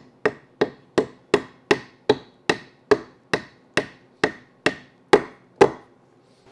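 Yellow-handled soft-faced hammer tapping a new bushing into the clutch cross-shaft bore of a Triumph TR4 gearbox bellhousing. It strikes in an even rhythm of about two and a half blows a second, fourteen in all, growing a little louder, and stops near the end.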